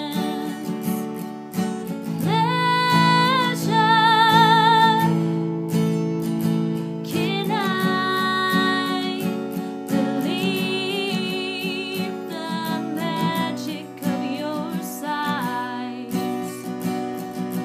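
A woman singing solo over her own strummed acoustic guitar, capo on the neck. Several long held notes are sung with vibrato.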